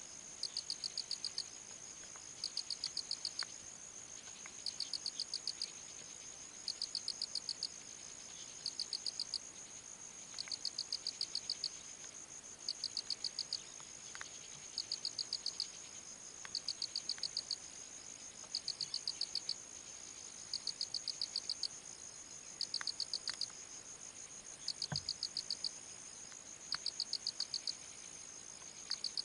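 Insects calling: a steady high-pitched whine runs throughout, and over it a rapid chirping trill comes in bursts of about a second, roughly one burst every two seconds.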